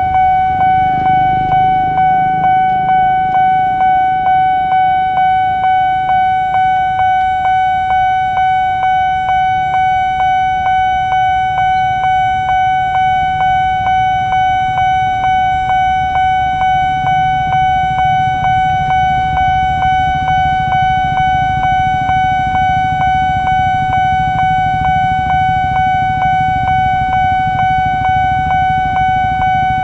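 Railway level-crossing warning alarm sounding: one steady electronic tone, pulsing rhythmically, the signal that a train is approaching. A low rumble builds underneath in the second half.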